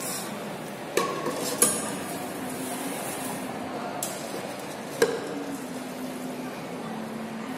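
A bottle-filling machine's Geneva-mechanism chain conveyor running with a low steady hum, broken by four sharp knocks and clinks of metal and glass.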